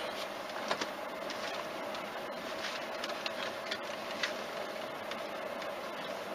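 Car driving slowly over a grass yard, heard from a dashcam inside the cabin: a steady running hum with a few scattered light clicks.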